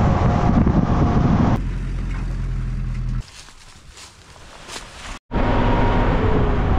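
Steady engine and road rumble of a moving car heard from inside, broken by a quieter stretch of about two seconds in the middle and a split-second dropout just after five seconds in, then the car rumble returns.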